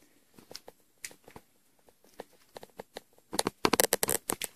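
Handling noise from a phone being turned around in the hand: scattered clicks and rubbing on the microphone, with a dense run of scrapes and rustles about three and a half seconds in.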